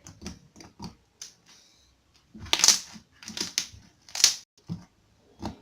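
Butter slime being squeezed and pressed by hand for ASMR: irregular soft squishes and small clicks, the loudest presses about two and a half, three and a half and four seconds in.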